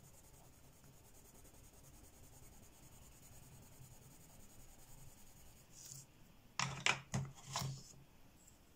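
Derwent Lightfast coloured pencil shading on paper, a faint steady scratchy rubbing. About seven seconds in, a few louder clicks and knocks as the pencil is put down.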